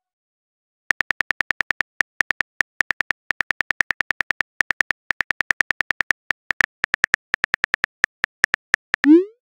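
Phone keyboard typing sound effect: a quick, even run of short clicks, about seven a second, starting about a second in as a text message is typed letter by letter. Near the end a short rising whoosh marks the message being sent.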